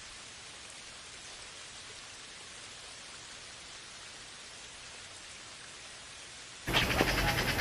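Steady rain ambience, an even hiss of falling rain. Near the end it cuts off abruptly and a louder, different recording begins, with sharp clicks over a low hum.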